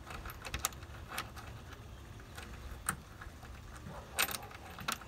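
A few light, irregular clicks and taps of a hood hinge bolt and its hardware being handled and fitted by hand, spaced out with short pauses between them.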